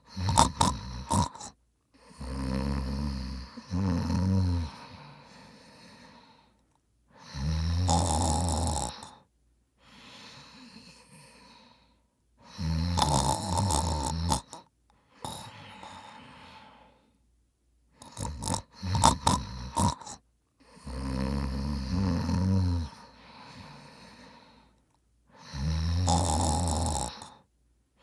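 A man snoring in his sleep: six loud snores a few seconds apart, with quieter breaths between them. Two clusters of short, sharp snorts come near the start and about two-thirds of the way through.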